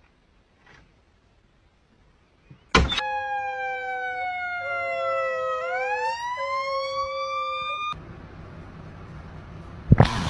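A corgi howling in a long siren-like wail for about five seconds, its pitch sliding slowly down and then swooping up, with a steadier lower note beneath. Before it, a few seconds of near silence broken by a sharp click.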